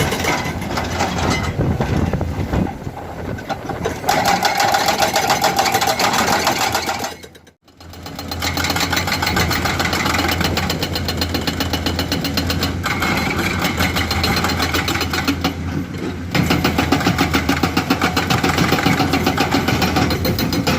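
Excavator-mounted hydraulic breaker hammering rock in rapid, continuous blows, with the excavator's diesel engine running underneath. The sound drops out briefly about seven and a half seconds in, and gets louder again near the end.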